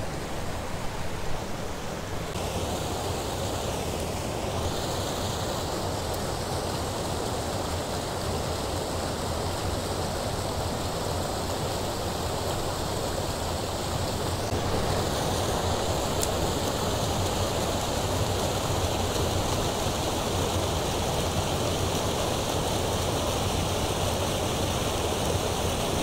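Steady rush of creek water pouring over a low concrete dam spillway.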